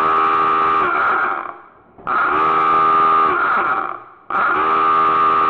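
Submarine dive-alarm klaxon sound effect: a loud horn sounding in three blasts about two seconds apart, each holding a steady pitch and then falling as it dies away.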